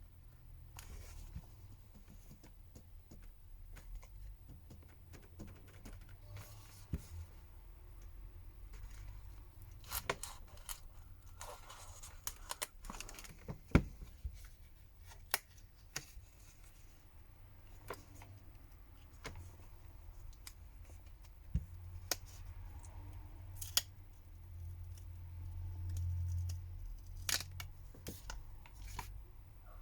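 Irregular sharp clicks and short scraping, tearing noises of thin plastic pry tools working a glued phone back cover loose, with a low hum swelling briefly near the end.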